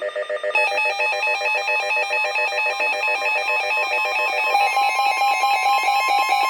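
Weather radio's electronic alert tone: a loud, rapidly pulsing multi-tone alarm that starts about half a second in and shifts to add a lower tone about four and a half seconds in. It is the alert that announces a severe thunderstorm warning.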